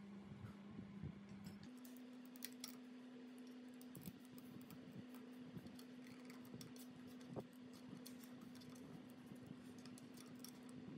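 Faint, scattered small metallic clicks and scrapes of a screwdriver working the terminal studs and links in a three-phase electric motor's terminal box, over a steady low hum.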